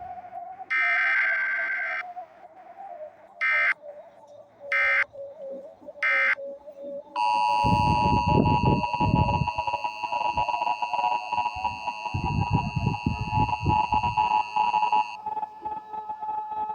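Emergency Alert System signal. First the buzzy digital header: one long burst, then three short ones a little over a second apart. About seven seconds in comes the EAS attention signal, a steady two-tone 853/960 Hz tone held for about eight seconds before it cuts off.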